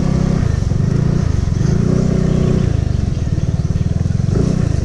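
Suzuki Skydrive Sport scooter's single-cylinder engine running as it is ridden, the engine note easing off and picking up again a few times with the throttle.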